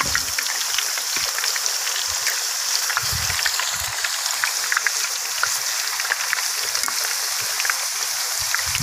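Thin raw potato slices deep-frying in hot oil, a steady sizzle full of small crackles.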